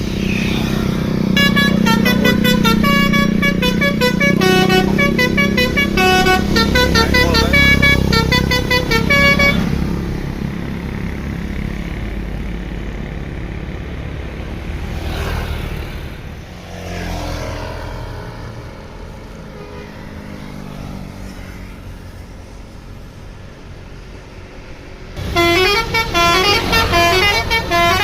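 Tour bus 'telolet basuri' musical air horn playing a fast tune of stepped notes for about eight seconds, then bus engine noise, with a few gliding tones, and the horn tune starts again suddenly near the end.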